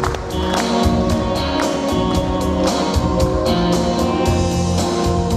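Instrumental introduction of a song: held chords over a steady drum beat, with no singing yet.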